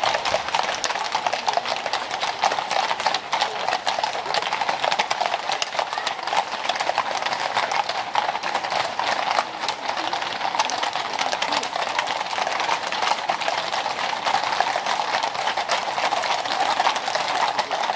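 A column of horses walking on brick paving: a dense, continuous clip-clop of many hooves overlapping.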